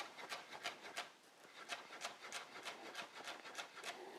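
Chef's knife slicing spring onions on a cutting board: quick, regular taps of the blade striking the board, several a second.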